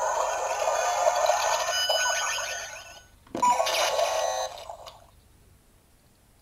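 DX Buggle Driver toy (Gashacon Bugvisor) playing its electronic sound effects through its small speaker. First a long, buzzing virus-spreading effect set off by the B button. Then, about three seconds in, a button click and a shorter glitchy 'noise' effect that stops about five seconds in.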